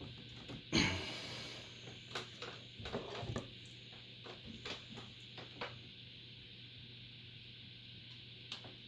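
Scattered small clicks and taps of a CPU heatsink and its retaining clip being handled on a motherboard, the loudest about a second in and a cluster a little later, with a faint steady hum underneath.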